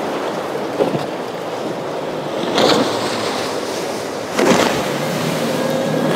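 A motorboat running through rough inlet surf, with two surging splashes of water, one about two and a half seconds in and one about four and a half seconds in.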